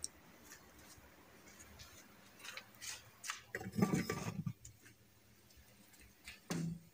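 Handling noise from a handheld phone: faint scattered clicks and rustles, with a louder brief rubbing sound about four seconds in as the phone comes up against a laminated wardrobe panel, and a short low knock near the end.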